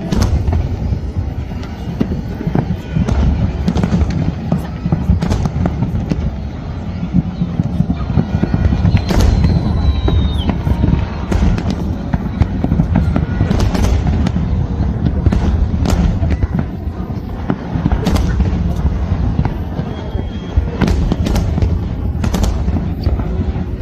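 Aerial fireworks display: a continuous deep rumble of shell bursts with many sharp bangs going off throughout.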